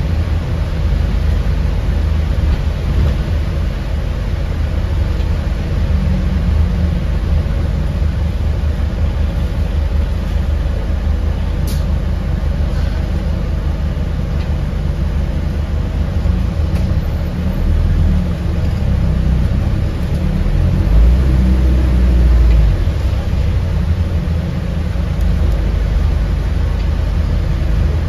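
Alexander Dennis Enviro400H City hybrid double-decker bus heard from inside the cabin while driving: a steady low rumble of drivetrain and road noise. There is one sharp click about twelve seconds in and a heavier low surge about twenty-one seconds in.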